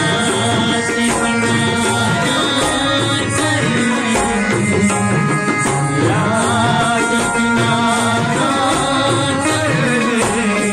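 Live ghazal accompaniment: tabla and dholak playing a steady rhythm under a harmonium and a bulbul tarang melody, with a man singing.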